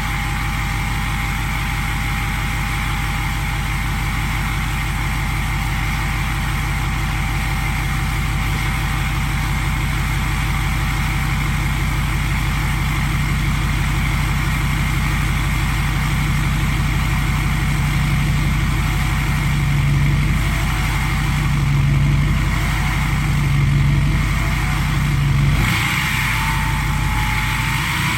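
Ford 6.7 L Powerstroke turbo-diesel V8 with a Stage 1 KC Whistler turbo, idling steadily through a 5-inch DPF-back exhaust. Near the end it is given four light revs, a couple of seconds apart.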